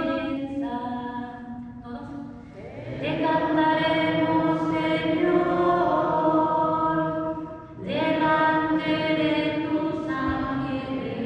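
Church singing of the responsorial psalm at a Catholic Mass: slow sung phrases of long held notes, with brief pauses about two and a half and eight seconds in.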